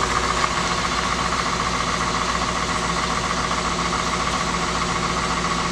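Cadillac car engine idling steadily, warming up after a cold start in freezing weather.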